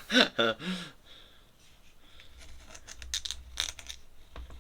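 A pen scratching on paper in a series of short drawing strokes, clustered in the middle, after a man's voice trails off about a second in.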